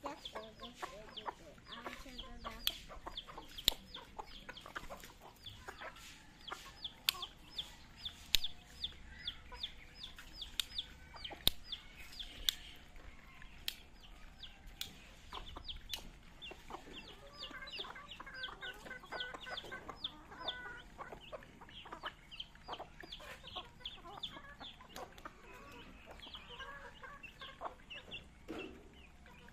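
Native chickens feeding: a steady run of high chick peeps, several a second, over hens clucking, with scattered sharp taps of beaks pecking feed off concrete.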